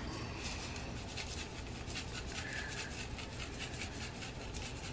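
Spice shaken from a jar onto ground beef in a frying pan: a faint, scratchy rattle of small repeated shakes.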